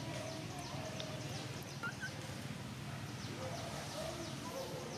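Outdoor ambience of birds chirping in quick, repeated high notes, with a steady low background hum and a single small click about two seconds in.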